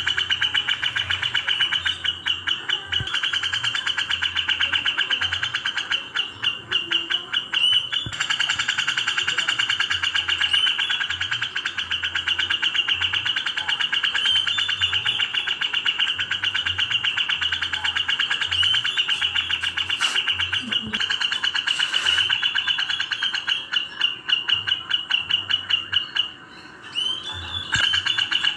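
Recorded birdsong of Eurasian tree sparrows chattering in a fight (burung gereja tarung), mixed with grey-cheeked bulbul (cucak jenggot) song: a dense, rapid, almost unbroken chatter that drops away briefly near the end.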